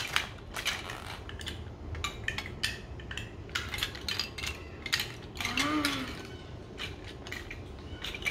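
Plastic LEGO DUPLO bricks handled and clicking against each other: an irregular series of small sharp clicks and clatters.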